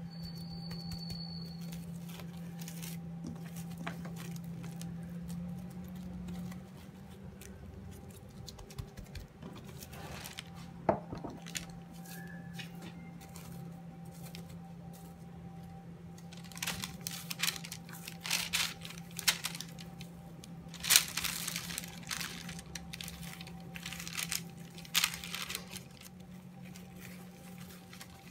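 Plastic cling film crinkling and rustling as it is peeled off logs of biscotti dough, in short bursts mostly through the second half, over a steady low hum.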